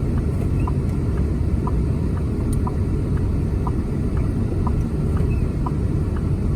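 Car cabin road noise, a steady low rumble from the car rolling in slow traffic, with the dashboard indicator ticking about once a second.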